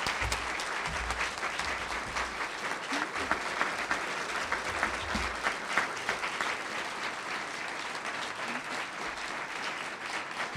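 Audience applauding, many hands clapping at an even level throughout.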